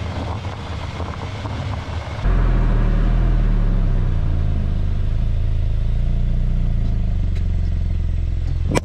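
Road and wind rumble from a moving Hyundai Santa Cruz pickup, picked up by a camera mounted underneath it near the suspension. About two seconds in, the sound cuts to a louder, deep, steady rumble of tyres on pavement.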